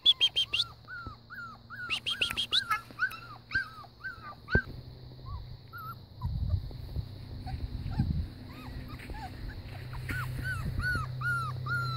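Puppies whimpering in strings of short, high whines, about two a second, with a few sharper yips near the start; the whining stops in the middle and starts again near the end.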